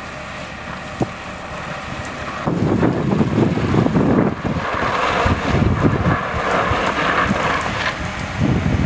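Wind buffeting the microphone in low rumbling gusts, louder from about two and a half seconds in, with a higher rushing hiss through the middle.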